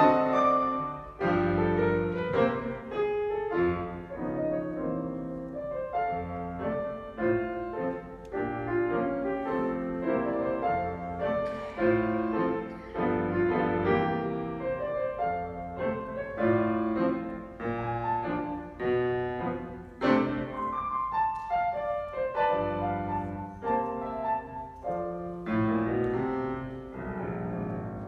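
Grand piano played solo in a concert hall, recorded from the audience seats: a continuous run of notes in phrases that swell and ease off, growing quieter near the end.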